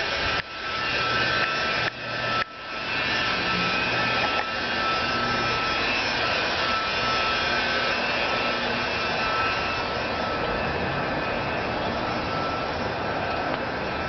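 Steady machine noise: a rushing hum with a thin high whine, broken by three brief dropouts in the first two and a half seconds.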